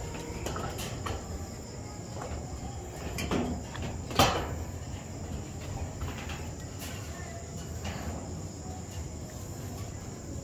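Crickets trilling steadily on one high pitch, with scattered knocks and clatter; the loudest is a single sharp knock about four seconds in.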